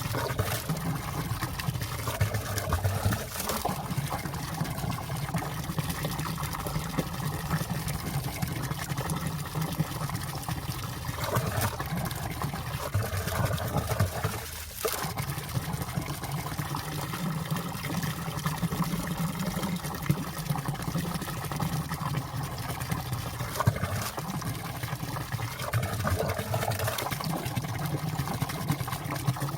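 Valley stream water flowing under and around ice: a steady trickling and burbling rush with small splashes. It dips briefly about halfway through.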